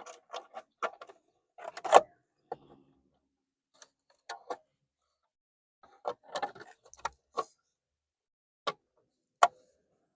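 Irregular sharp clicks and light knocks of plastic steering-column trim being handled and fitted into place, the loudest about two seconds in.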